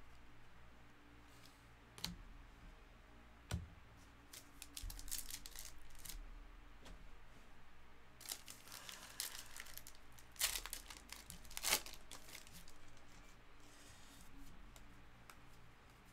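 A trading-card pack's wrapper being torn open and crinkled in a few short bursts around the middle, with scattered clicks and taps of cards being handled.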